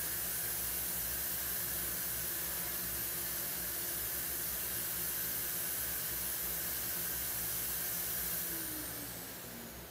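Steady hissing rush of air with a low hum from a running household motor. Near the end the motor switches off: its pitch falls as it spins down and the hiss fades to a quieter background.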